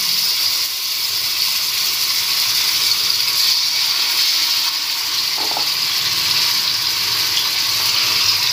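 Marinated chicken pieces sizzling steadily in hot oil in a kadai as they are laid in one by one.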